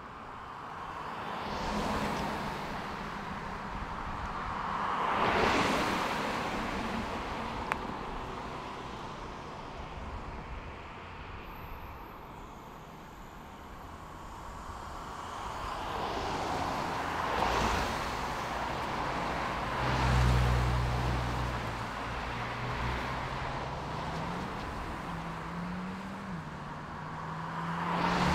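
Road traffic: several cars pass one after another, each swelling and fading. In the last third a heavy engine's low note comes in, rising in pitch in steps and dropping back.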